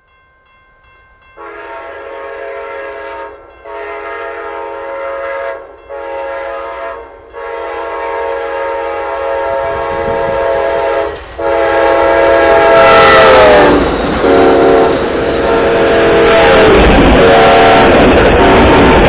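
Amtrak GE P42DC Genesis locomotive sounding its multi-note air horn as it approaches: two long blasts, a short one, then a long one held as the locomotive passes close by, the long-long-short-long grade-crossing signal. The horn's pitch drops as it goes past. The noise of the locomotive and bilevel passenger cars rolling along the rails swells to the loudest part near the end.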